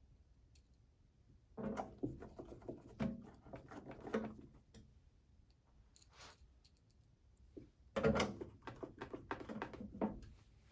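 Clicks and knocks of a printer's case being fitted and screwed back on with a Phillips screwdriver, in two bursts of handling noise, one starting about one and a half seconds in and another near eight seconds.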